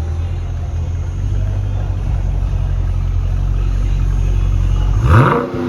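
2020 Dodge Scat Pack's 392 Hemi V8 on its stock exhaust, a steady low drone while driving, then rising sharply in pitch as it revs about five seconds in.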